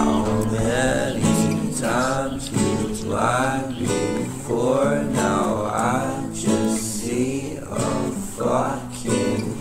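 Background music led by an acoustic guitar, with a pitched melody line moving over it.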